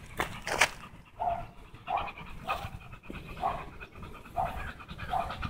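American bully dog panting in a steady rhythm of short breaths.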